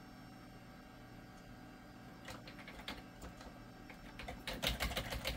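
Keystrokes on a Dell QuietKey keyboard: a few soft clicks about two and a half seconds in, then a quicker cluster near the end, over a steady low hum. The keys are being pressed to try Ctrl-Alt-Delete on a hung Windows 98 boot, which the computer doesn't respond to.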